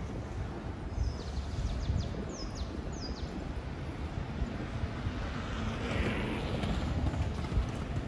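City street ambience: a low traffic rumble with wind buffeting the microphone. A few short, high, falling chirps come between about one and three seconds in, and a hiss swells and fades around six seconds in.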